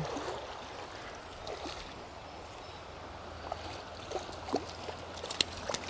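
River current running steadily, with a few short faint ticks in the second half.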